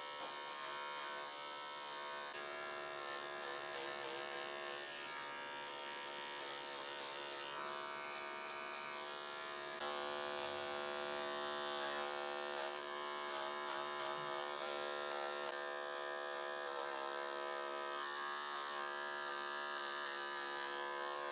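Electric grooming clippers running steadily as they shave a dog's paw pads, a constant buzz whose pitch dips slightly now and then.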